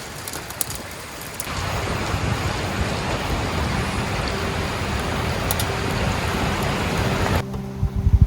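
Steady rushing noise of a flowing river, louder from about a second and a half in, with a few sharp crackles at the start. Music with held tones comes in near the end.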